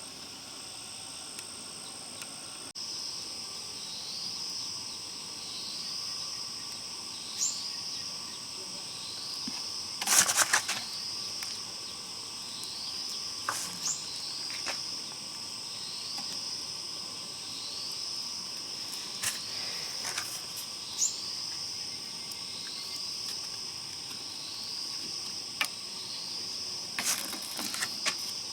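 Insects trilling steadily at a high pitch, with a short falling chirp repeating every second or two. Occasional sharp knocks and taps break in, the loudest cluster about ten seconds in and a few more near the end.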